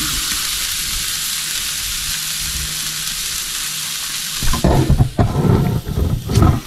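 Sauced chicken pieces sizzling over charcoal on a grill: a steady hiss. About four and a half seconds in, loud irregular thumps and rumbles close to the microphone take over.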